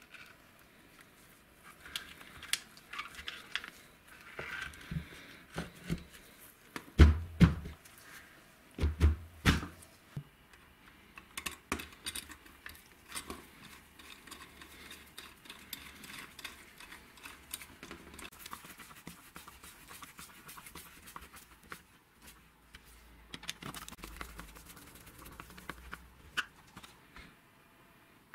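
Handling noises from reassembling a hammer drill's motor: the copper-wound field coil stator is worked into its orange plastic housing, with scattered light clicks and rattles. There are a few loud thumps about seven and nine seconds in.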